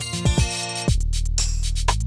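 Electronic background music: deep drum-machine kick hits that drop in pitch over a held bass, with quick hi-hat ticks joining about halfway through.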